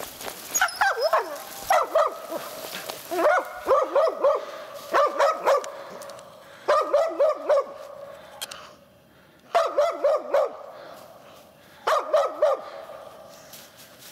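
A hunting laika barking up a tree at a treed marten, in quick runs of three to five barks with short gaps between, and a longer pause past the middle. This barking at the tree is the laika's signal that the quarry is up there.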